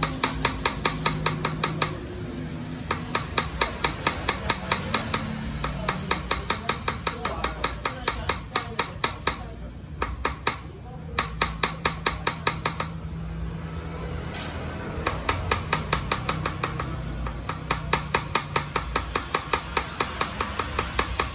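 Small hammer rapidly tapping a steel punch held on a piece of 24-karat gold, with an upturned hammer head serving as the anvil. The taps come in quick, evenly spaced runs of several a second, each a light metallic tap with a short ring, broken by a few brief pauses.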